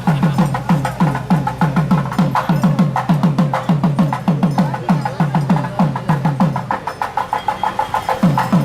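Procession drumming: a fast, steady beat of low drum strokes, about five a second, each dropping in pitch, with sharp clicking strokes on top. The low drumming thins out briefly near the end, then comes back strong.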